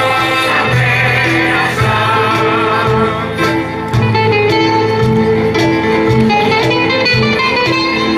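Mixed choir of men and women singing a Greek folk song, with live plucked-string and keyboard accompaniment over a steady repeating bass line.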